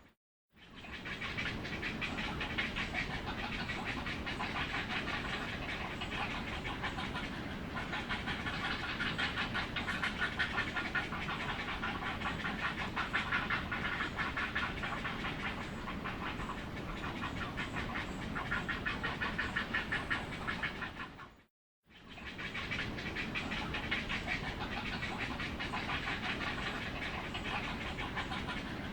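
Heron calling: a continuous, rapid chattering pulse that drops out briefly near the start and again about two-thirds of the way through.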